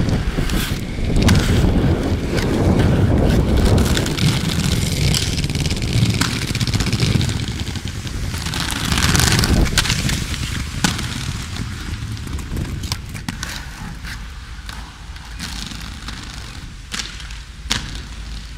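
Inline skates rolling over paving stones and asphalt: a heavy rumble of wheels through roughly the first half, then quieter rolling with several sharp clacks of skates hitting the ground.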